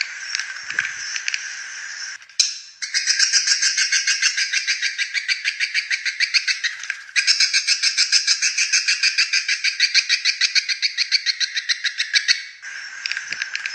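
Recorded swiftlet lure call played back: rapid, rattling trains of high chirps, which the uploader calls a rough, harsh ("kotor dan kasar") calling and roosting sound for attracting swiftlets. It breaks off briefly about two seconds in, dips again about seven seconds in, and changes pattern near the end.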